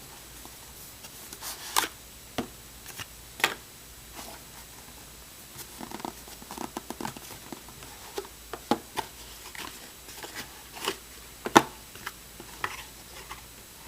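Hands opening and handling a cardboard trading-card hobby box: scattered clicks, taps and crinkles of cardboard packaging, the sharpest snap a little past the middle.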